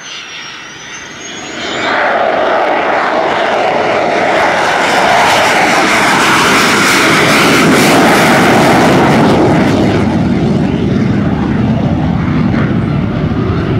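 F-16 Fighting Falcon jet flying a low missed approach. A high whine rises at first. About two seconds in, a loud rush of jet noise builds as the fighter powers past, stays loud through the middle, and eases only a little as it climbs away.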